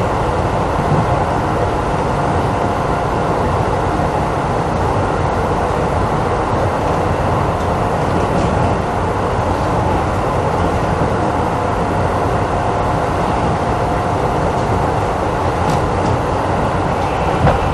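Running sound heard inside the car of a renewed, resistance-controlled Keisei 3500-series electric train moving at a steady speed. There is a constant rumble of wheels on rail, with a faint steady whine that is clearer in the second half and a couple of light clicks near the end.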